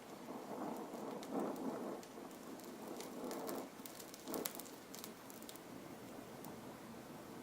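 Oxyacetylene torch flame hissing on the metal, with scattered sharp crackles and pops from the molten puddle, thickest in the middle.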